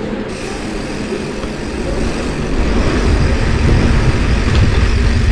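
Wind buffeting the microphone and low rumble while riding a mountain bike, growing louder about two and a half seconds in.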